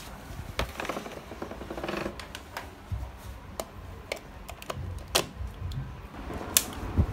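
Scattered plastic clicks and knocks as an appliance's power cord is handled and a three-pin plug is pushed into a wall socket, ending with a sharp click of the socket switch being flicked on.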